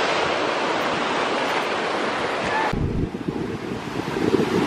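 Ocean surf washing steadily, mixed with wind buffeting the microphone. About three seconds in the sound changes suddenly to a lower, gustier rush of wind and waves.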